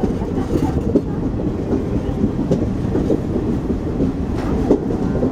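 Express passenger train running at speed, heard from alongside its coaches: a steady low rumble of wheels on rail with scattered clicks and knocks from the rail joints.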